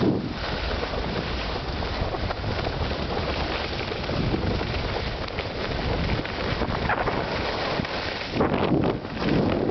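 Wind rushing over the microphone of a camera carried downhill by a skier, mixed with the hiss of skis sliding on snow. The noise is steady, then surges louder twice near the end.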